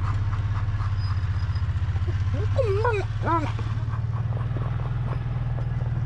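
A vehicle engine running steadily with a low, fast-pulsing hum, and a dog whining briefly around the middle.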